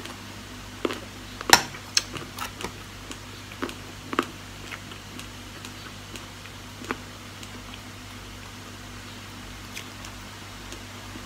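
Sounds of eating salad with a metal fork: scattered sharp clicks and clinks, the loudest about a second and a half in, thinning out after about seven seconds. A steady low hum runs underneath.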